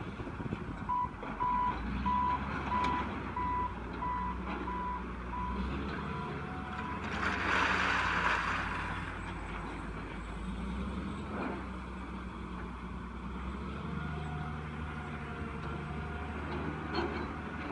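Diesel engine of Caterpillar earth-moving equipment running, with a reversing alarm beeping about eight times in the first few seconds. Around the middle comes a loud rushing noise lasting about two seconds, then the engine runs on.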